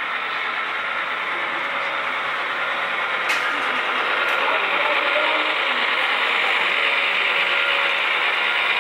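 A model train approaching on its track: a steady mechanical rolling and gear noise from the wheels and drive that grows slowly louder as the locomotives near. There is one sharp click about three seconds in.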